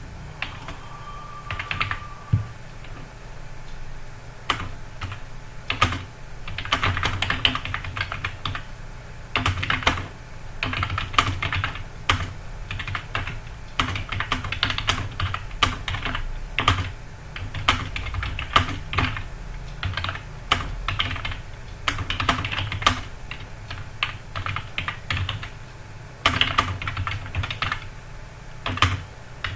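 Typing on a computer keyboard: fast runs of key clicks in uneven bursts, with brief pauses and occasional sharper single strokes.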